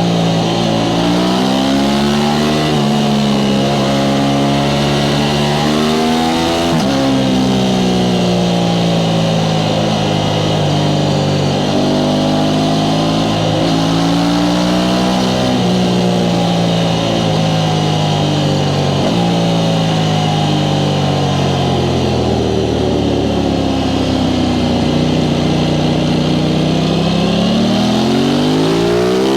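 Aprilia Tuono 660 Factory's parallel-twin engine through its stock exhaust, under way: the engine note rises and falls with the revs, climbing then dropping sharply about seven seconds in, easing down in long falls and climbing again near the end.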